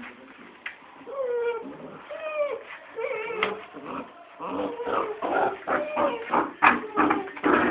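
Young puppies play-fighting: a few high whines at first, then a rapid run of short yips and growls from about halfway through, with one sharp click near the end.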